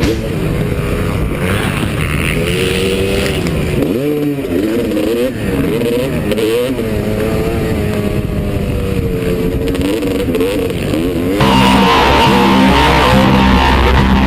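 Motocross motorcycle engines revving, their pitch rising and falling as the throttle opens and closes. About eleven seconds in, loud rock music with guitar cuts in over them.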